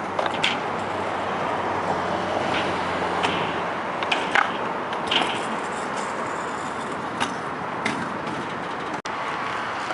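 Scooter wheels rolling on skatepark concrete in a steady rumble, broken by sharp clacks of the scooter striking the ground at irregular moments.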